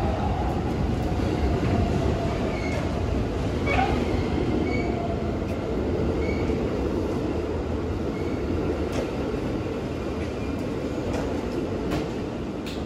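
Keikyu electric train, a steel 1500-series set coupled to a 1000-series set, pulling out of the station and rolling past. A steady rumble of wheels on rail, with a faint motor tone that sinks slowly in pitch and scattered light clicks.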